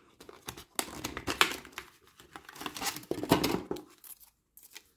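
Clear plastic blister packaging of an LED desk lamp being crinkled and pulled open by hand: a run of irregular crackles and snaps of stiff plastic, loudest a little past three seconds in.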